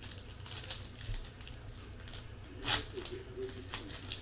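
Soft rustling and crinkling of a trading-card pack wrapper being handled and torn open by hand, with one louder crinkle about two-thirds of the way through.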